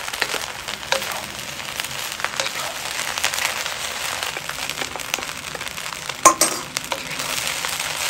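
Rice stir-frying in a hot pan: a steady sizzle with the wooden spatula scraping and tossing the grains, and one louder clatter of the spatula against the pan about three-quarters of the way through.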